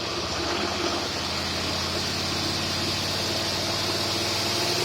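Engine fitted with a 750 cfm AFB marine carburetor, running at a steady speed with a steady hiss during a dyno test of the carburetor.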